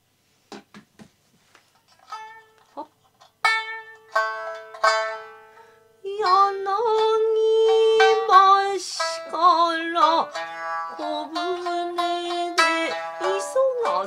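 Shamisen playing a kouta at the high 8-hon pitch: a few sparse plucked notes, then ringing notes, and about six seconds in a woman's voice starts singing over the accompaniment with long held, wavering tones.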